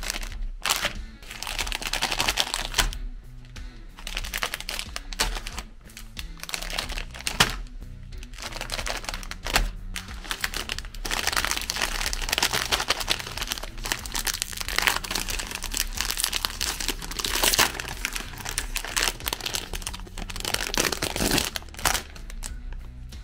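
Foil-lined plastic wrappers of wafer ice cream sandwiches crinkling as they are handled, with one peeled open near the end, over background music.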